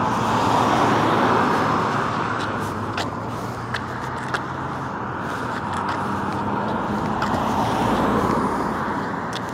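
Road traffic: cars passing on a street, their tyre noise swelling twice, near the start and again near the end, with a few light clicks in between.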